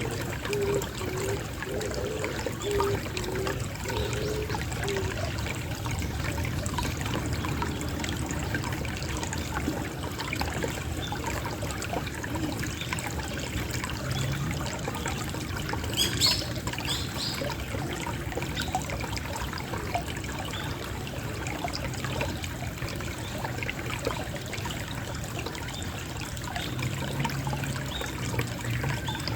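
Water trickling steadily in a small flow. A pigeon coos in a short run of repeated low notes over the first few seconds, and a brief sharp click comes about halfway through.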